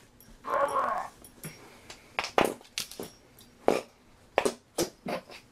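A dog breaking wind: one short, rough fart about half a second in. It is followed by a run of short sharp taps and knocks.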